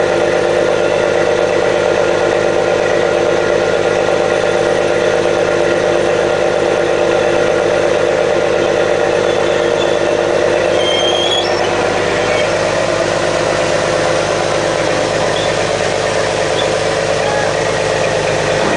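A fishing boat's engine and deck machinery run steadily, a loud unbroken drone of several level tones. A short high squeak comes about eleven seconds in.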